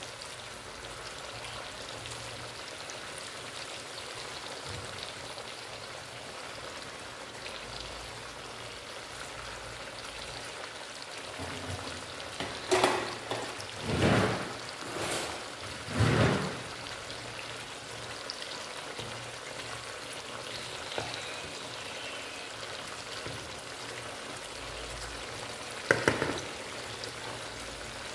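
Breaded steaks shallow-frying in oil in a pan, giving a steady sizzle and crackle. A few louder knocks of cookware come about halfway through and again near the end.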